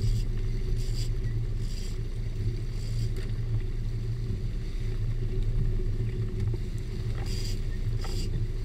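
Sportfishing boat's engine running steadily with a low drone.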